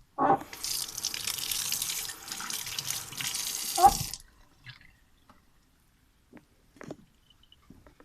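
Water running from a tap into a sink for about four seconds, then shut off, followed by a few faint knocks.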